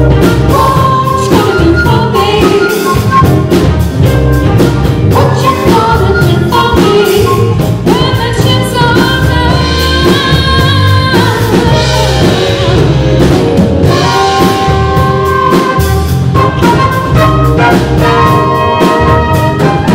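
Live band playing R&B-funk: a woman singing lead over a horn section of saxophones, trumpet and trombone, with drums, electric bass and keyboards, long held notes around the middle.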